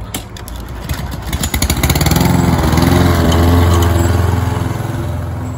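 Petrol walk-behind rotary lawn mower running and cutting grass as it is pushed past, getting louder to a peak about three and a half seconds in, then easing off.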